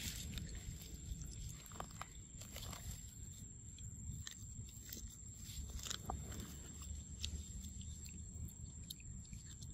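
Monkey biting and chewing food held close to the microphone: scattered short crunchy clicks over a low rumble, with a faint steady high-pitched tone throughout.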